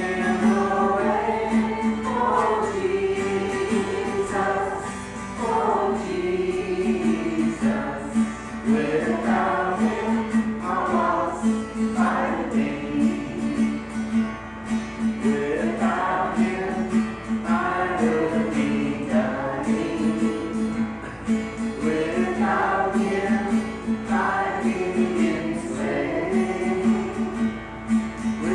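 Gospel worship music: voices singing together over instrumental accompaniment, with a steady pulsing low note beneath.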